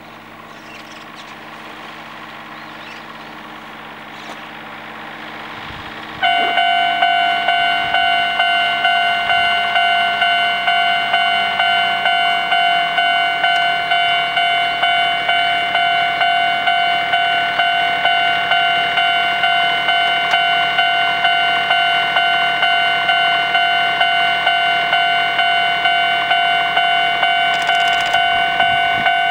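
Level-crossing warning bell starts suddenly about six seconds in and rings steadily at about two strokes a second, signalling an approaching train. Before it, a faint rising rumble of the approaching 7000-series electric train.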